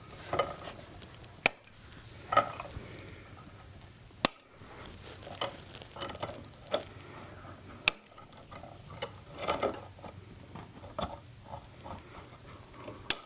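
Wire cutters snipping the hooked ends off copper house wires: four sharp snips a few seconds apart, with quieter rustling and clicks of wire handling between them.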